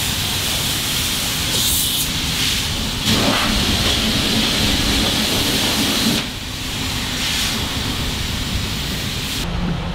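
Car-wash pressure-washer wand spraying a jet of water onto a bass boat: a steady, loud hiss of spray, louder for about three seconds from about three seconds in.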